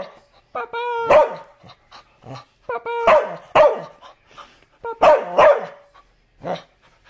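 Dog barking in drawn-out, pitched barks, in three bouts about two seconds apart and one short bark near the end.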